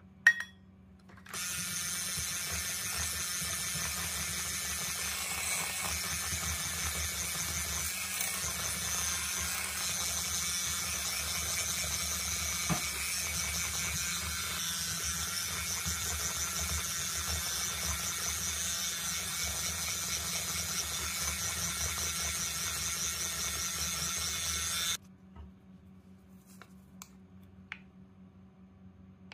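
Electric hand mixer beating cake batter in a glass bowl. It runs steadily with a high whine for about 23 seconds, then switches off suddenly. A single sharp knock comes just before the mixer starts.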